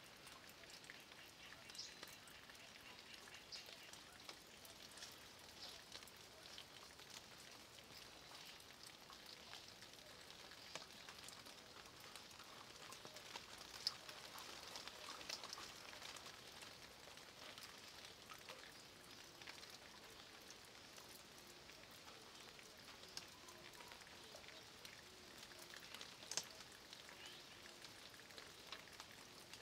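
Light rain falling on a dry-stone wall and leaves: a faint, steady patter with many separate drips, two of them louder, one about halfway through and one near the end.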